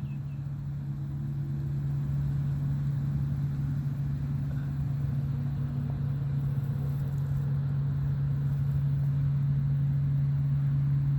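Steady low machine hum, like an engine or motor running at constant speed, with no change in pitch.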